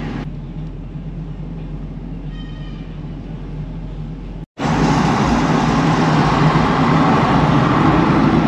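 Steady vehicle road noise and engine hum while driving, with a faint brief higher tone about two and a half seconds in. The sound drops out suddenly for a moment about halfway, then comes back louder.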